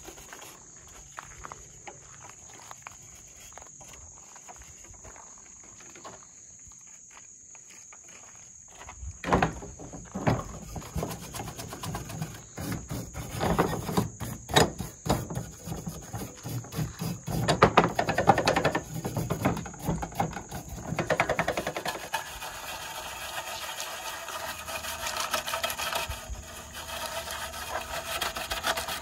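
A hand brush scrubbing the rusty metal grate, burner and plates of an old Coleman propane camp stove: irregular scrubbing strokes that start about a third of the way in and change character near the end. Insects chirp steadily throughout.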